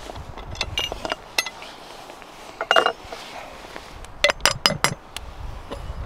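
Metal clinks and knocks from an Afghan pressure cauldron's screw clamp and lid as they are loosened and lifted off. There are a few light clicks in the first second and a half and a ringing clank near three seconds, then a quick run of four or five sharp clinks around four and a half seconds in.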